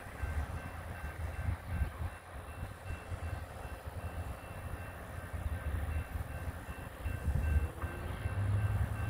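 Wind rumbling and buffeting across the microphone in uneven gusts, with a faint high beeping that repeats about twice a second.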